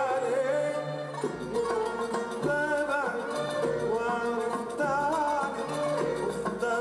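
Live Arabic song: a male voice singing an ornamented, wavering melody, accompanied by violins and a double bass.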